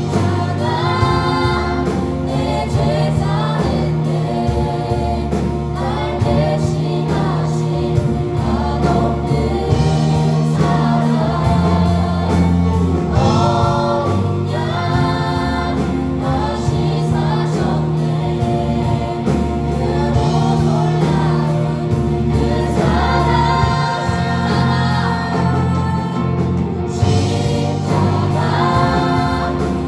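A group of voices singing a Christian praise song over live band accompaniment, with sustained bass notes and a steady drum beat.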